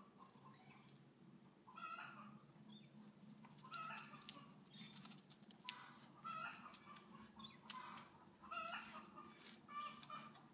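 Short animal calls repeated about every second or two, some falling in pitch, with a few sharp clicks in the middle and a faint steady hum underneath.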